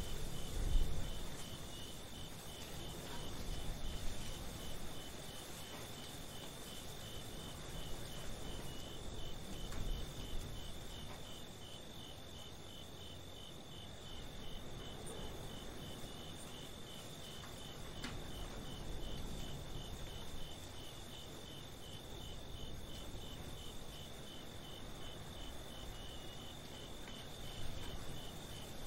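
Crickets chirping in a steady, evenly pulsed night chorus over a low rumble that swells and fades.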